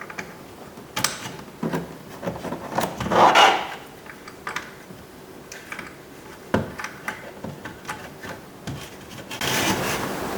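Plastic clicks and rubbing as wiring connectors are plugged into a truck door's power window switch and the door trim is handled, with a louder scraping rub about three seconds in and a steadier rushing noise near the end.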